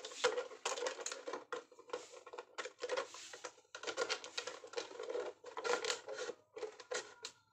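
Scissors snipping through a thin plastic drink bottle, cutting it into strips: runs of quick crackling snips with the plastic crinkling, broken by short pauses.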